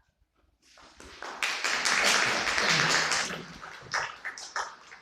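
Audience applause that swells quickly, holds briefly, then thins out into a few scattered claps.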